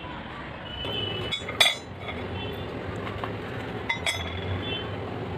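Steel rebar clinking against steel: two sharp metallic clinks with a brief ring, the louder about one and a half seconds in and a second one about four seconds in.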